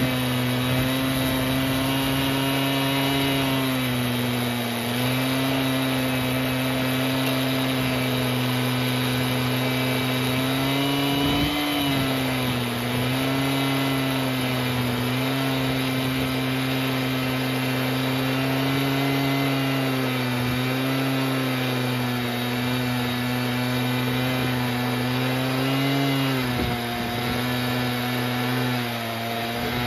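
Stihl MS880 two-stroke chainsaw running flat out, ripping lengthwise through a yew log on a Logosol F2 chainsaw mill. The drone is loud and steady, and its pitch dips and recovers briefly about 11 seconds and again about 26 seconds in.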